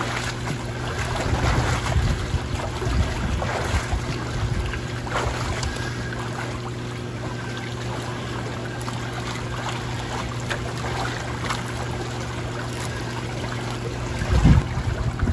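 Water splashing from a swimmer's freestyle strokes against the current in a swim spa, over the steady low hum of the spa's current pump. A louder thump near the end.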